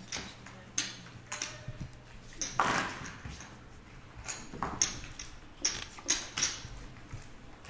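Poker chips clicking as they are handled and stacked by the players: a scattered run of sharp clicks, with a longer clattering burst about two and a half seconds in, over a steady low hum.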